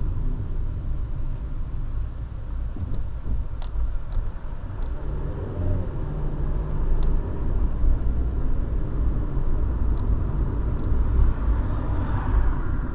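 Steady low engine and road rumble inside a moving Volkswagen Polo's cabin, as picked up by a windscreen dashcam's built-in microphone, with a few faint ticks and a swell of hiss near the end.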